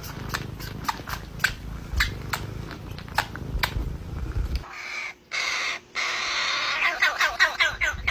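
Sharp clicks or taps about twice a second over a low rumble. About halfway through the sound changes to a hiss, and near the end comes a quick run of short animal calls.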